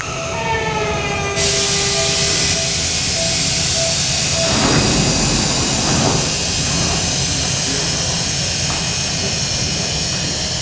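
Seibu 20000-series electric train's traction motors whining and falling in pitch as the train brakes. About a second and a half in, a loud steady hiss sets in abruptly and carries on.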